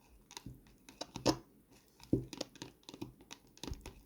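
Small handling noises: a few scattered light taps and clicks, roughly half a dozen at irregular intervals, as a small bottle of colour and a mixing cup are handled.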